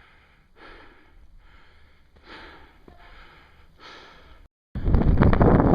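A hiker breathing hard and rhythmically while climbing at high altitude, a breath about every second, heavy from the effort in thin air. Near the end the sound cuts out briefly, then loud wind buffets the microphone.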